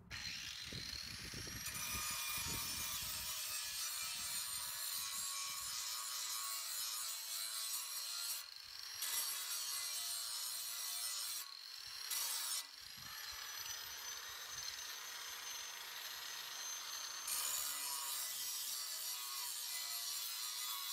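Handheld angle grinder sharpening the steel cutting edge of a lawnmower blade clamped in a vise: a steady high whine under a hissing rasp of the disc on metal. The motor whine rises as it spins up at the start, and the rasp breaks off twice briefly, about eight and twelve seconds in, as the disc leaves the edge.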